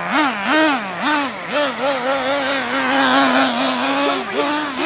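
Traxxas T-Maxx's small nitro engine revving in quick throttle blips, rising and falling in pitch about two to three times a second, then held at a steady high pitch for about two and a half seconds before dropping back near the end.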